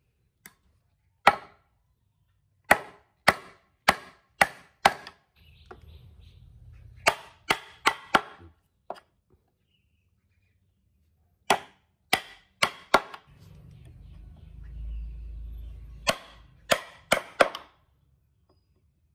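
Mallet blows on a wood chisel cutting mortises in a hardwood board: sharp strikes in runs of four to six, about two a second, with pauses between runs. A low rumble fills two of the pauses.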